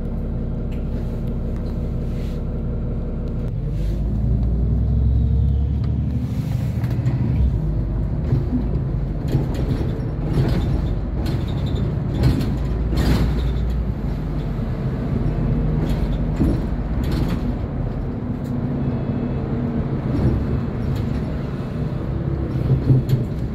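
SOR NB 12 city bus's diesel engine idling at a standstill, then about three and a half seconds in pulling away and accelerating with a rising engine note, heard from inside the bus. Short knocks and rattles come through while it drives.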